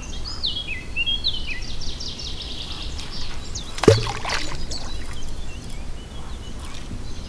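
A carp rig with a PVA bag lands in the water with a single short plop about four seconds in, while songbirds sing throughout, most busily in the first two seconds.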